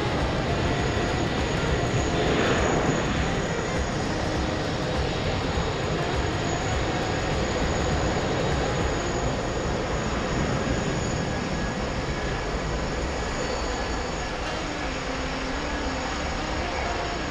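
Jet airliner engines at an airport: a steady jet rumble and hiss from landing and taxiing airliners, swelling briefly about two seconds in.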